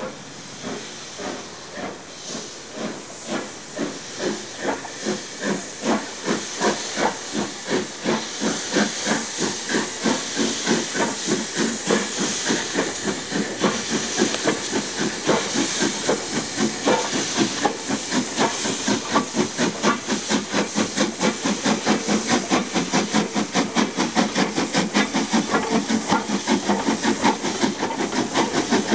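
LNER K4 three-cylinder steam locomotive 'The Great Marquess' getting a train under way: its exhaust beats grow louder and quicken steadily from about one a second to several a second. Under the beats runs a hiss of steam from the open cylinder drain cocks.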